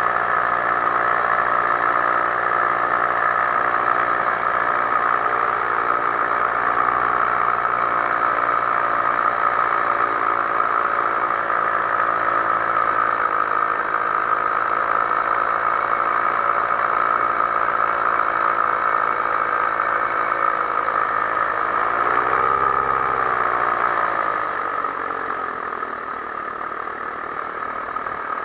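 Powered paraglider's backpack engine and propeller running steadily in flight. About 22 seconds in the revs rise and fall briefly, and near the end the engine runs lower and quieter.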